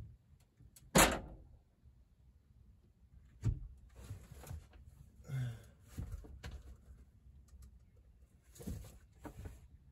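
Knocks and clunks from a heavy metal lathe being shifted inside a van: one sharp loud knock about a second in, another a few seconds later, scattered clanks and creaks in between, and a further knock near the end.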